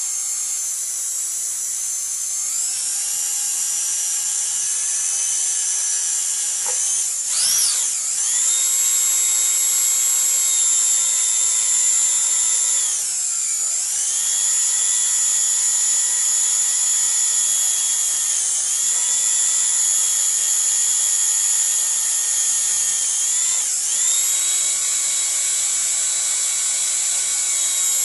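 Dental drill running with a steady, very high-pitched whine. Its pitch sags and climbs back three times: about a quarter of the way in, around the middle, and near the end.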